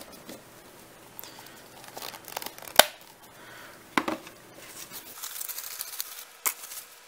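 Thin plastic deli-cup lids and disposable gloves crinkling and rustling as a lid is swapped and pressed onto a small cup, with sharp plastic clicks: the loudest about three seconds in, another at about four seconds and one near the end.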